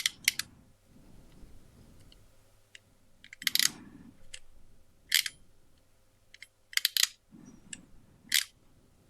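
Crimping tool's cutter snipping at the plastic centre spline of a Cat6 cable: a string of sharp clicks and snips a second or two apart, with soft handling rustle between, as the last bit resists the cut.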